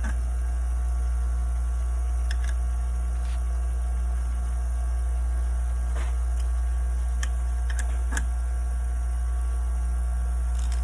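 Scissors-sharpening machine running with a steady low hum while a blade is honed, with a few faint light ticks scattered through it.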